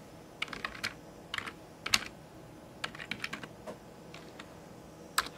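Typing on a computer keyboard: short runs of key clicks, a few keystrokes at a time with pauses between, the sharpest clicks about two seconds in and just before the end.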